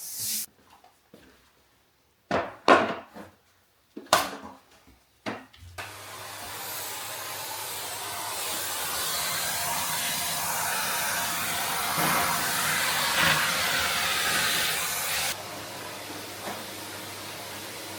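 A few knocks and clatters of things being handled, then about six seconds in a vacuum cleaner starts and runs steadily with a hissing rush and a low motor hum. Near the end its sound drops to a quieter, duller rush.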